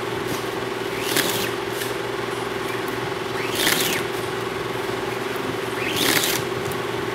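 A squeegee pulled across an inked silkscreen in swishing strokes about every two and a half seconds, over a steady machine hum.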